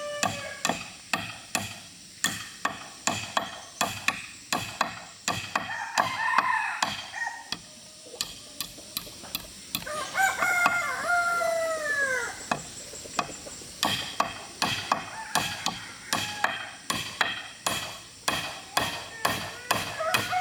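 Steady blows of a tool striking wood, about two a second, as timber is worked. A rooster crows once in the middle, one long crow that falls in pitch at the end.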